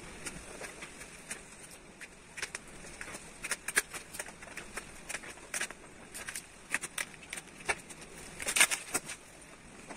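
Irregular crackles and soft taps of carbon-fibre vinyl wrap film being handled and pressed down along the edge of a car roof.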